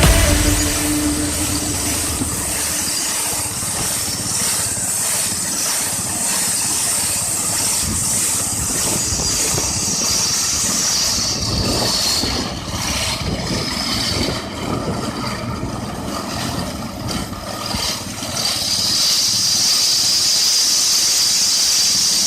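MP-12 rail grinding machine's abrasive wheel grinding down a welded rail joint, a steady high-pitched grinding squeal that wavers and dips for a few seconds midway before steadying again.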